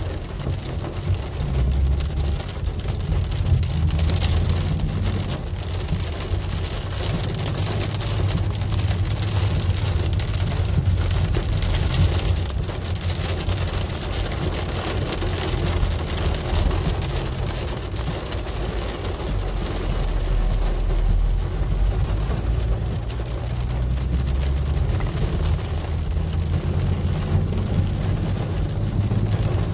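Rain hitting a car's roof and windshield, heard from inside the cabin, over the steady low rumble of the car driving on a wet road.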